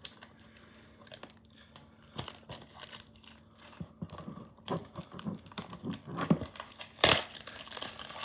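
Plastic shrink-wrap being torn and peeled off a DVD case: irregular crinkling and crackling that starts about two seconds in and grows busier, with one loud crackle near the end.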